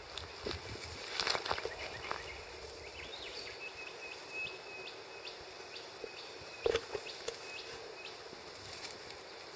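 Dry grass and leaf litter crackling and rustling in short bursts, loudest about a second in and again near seven seconds, over a thin steady high note in the background.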